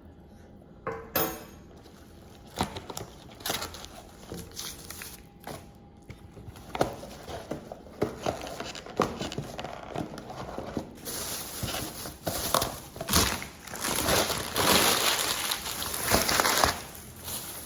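Takeout food packaging being handled: scattered knocks and clicks, then about six seconds of paper and plastic rustling and crinkling.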